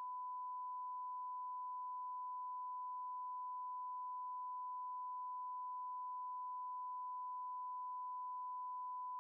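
A steady electronic sine tone at about 1 kHz, holding one unchanging pitch and level.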